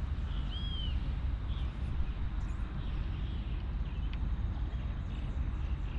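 Steady low outdoor rumble at the riverside, with one short bird chirp about half a second in.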